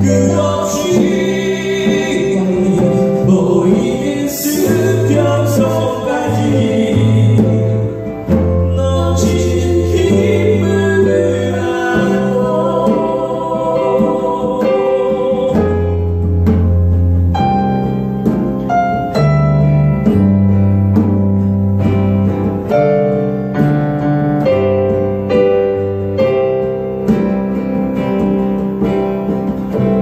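Live acoustic band performing a song: a man singing over strummed acoustic guitar, electric bass holding long low notes, and hand drum.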